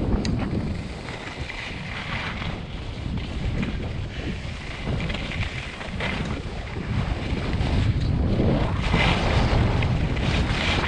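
Wind buffeting the microphone of a camera carried by a skier on the move, a constant low rumble, with swells of hissing from skis sliding over snow every few seconds.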